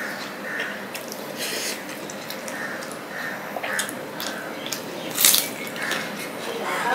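Wet squishing and smacking of rice being mixed with fish curry by hand on a steel plate, with chewing mouth sounds; one louder smack about five seconds in.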